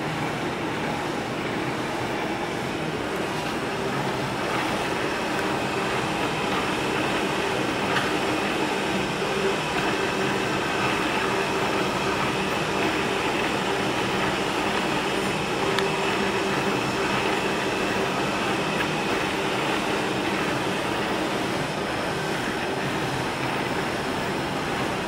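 ShaperJet desktop 3D printer running a print: a steady mechanical whirr with faint whining tones that shift as the print head and bed move.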